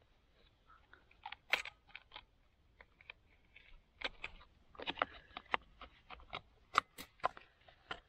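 Nylon trimmer line being fed and wound into a string trimmer's bump head by hand: irregular clicks of the plastic head and short scrapes of the line, coming in small clusters.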